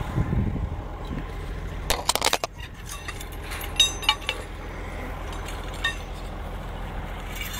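Wire fence rattling and clinking as someone climbs through it: a quick cluster of clicks about two seconds in, then a few ringing metallic clinks around four seconds, over a steady low rumble.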